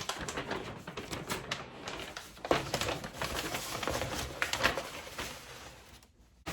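Graphics card packaging being handled by hand: a busy run of small clicks, taps and rustling that dies away shortly before the end.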